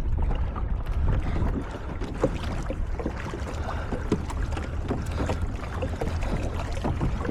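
Water splashing and lapping against a moving pedal kayak's hull, with many short splashes and knocks over a steady low rumble of wind on the microphone.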